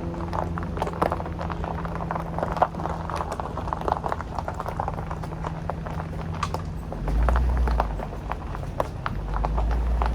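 Car driving slowly: a steady low engine hum under a dense crackle of small clicks from the tyres on the road surface, with a low rumble swelling twice, about seven and nine seconds in.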